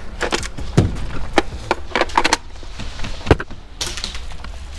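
Airsoft gunfire: a dozen or so irregular sharp snaps and knocks, some in quick clusters, with two heavier thuds, over a low outdoor background.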